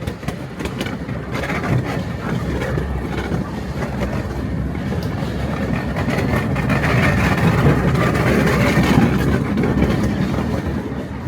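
A miniature railway train running along its track: a steady noise that grows louder toward the middle and eases off near the end.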